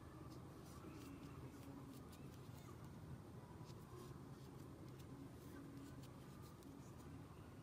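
Near silence: a low steady room hum with faint, scattered light clicks from a metal crochet hook working acrylic-looking green yarn.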